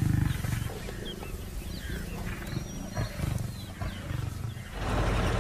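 Asiatic lion growling low, loudest at the start and again about three seconds in, with small birds chirping. A steady low rumbling noise comes in near the end.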